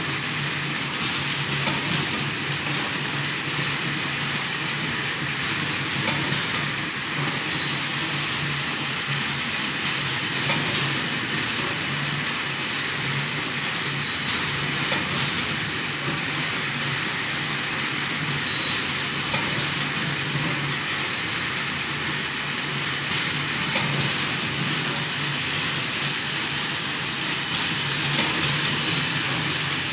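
Packaging machinery running: a steady mechanical hiss with a low hum underneath.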